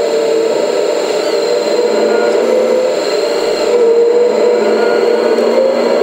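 Hydraulic pump of a 1/14-scale Kabolite K350-200 RC excavator running with a steady whine, its pitch shifting a little as the valves work the rotary log grapple.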